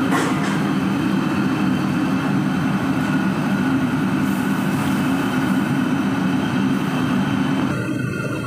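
Steady loud roar of a commercial gas wok range with its burner lit and the kitchen extraction running. Music starts to come in near the end.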